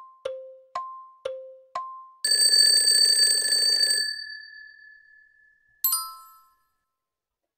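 Quiz countdown-timer sound effect: ticks alternating between a higher and a lower pitch, about two a second. About two seconds in, a loud bell rings for nearly two seconds as time runs out and fades away. A short bright chime follows near the end as the answer is revealed.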